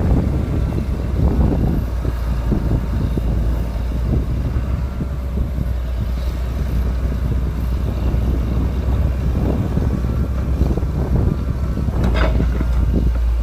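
Heavy diesel engine of an excavator running steadily under load while digging, with irregular scraping and knocking and a sharp metallic clank about twelve seconds in.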